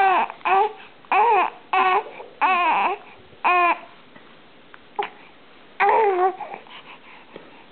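Infant cooing and babbling: a string of short, high-pitched vocal sounds, each rising and falling in pitch, with a pause of about two seconds before a last coo.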